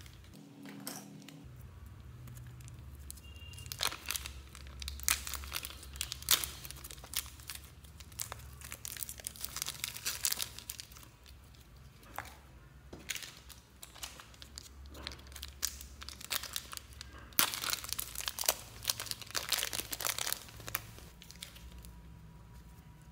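Hands handling glossy slime and a small plastic bag over a tub: irregular crinkling with sticky crackles and pops, coming in bursts.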